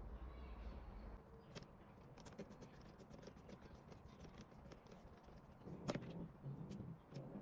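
Faint handling noise from work on a handheld scan tool: light clicks and scrapes of small parts and tools, with a sharper click about six seconds in.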